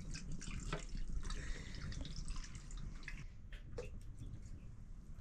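Water trickling and dripping into a cooking pot, with scattered small drips and clicks, as the water for millet dhido is set to heat.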